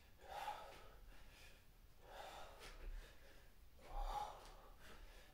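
A man breathing deeply and audibly, about three soft breaths spaced a second and a half to two seconds apart. The breaths are paced to a rhythmic arm-raising warm-up.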